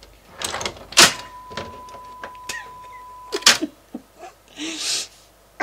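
A steady 1 kHz test tone played back from a test-tone reel on an Akai GX-260D reel-to-reel deck for playback calibration. It starts with a loud click about a second in and cuts off with another click about two and a half seconds later, amid small knocks and rustles of hands working the deck and leads.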